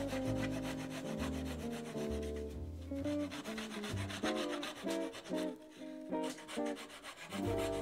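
Japanese flush-cut pull saw rasping back and forth as it trims small wooden pegs flush with a wooden box top, over background music.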